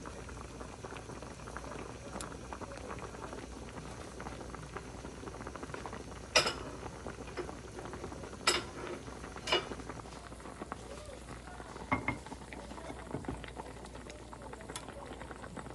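A pot of soup boiling steadily, with a few sharp clinks of a utensil against cookware.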